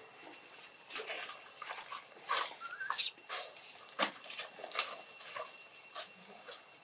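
Dry leaf litter rustling and crackling in irregular bursts under macaques moving about, with a brief rising squeak about two and a half seconds in and a sharp crackle just after it.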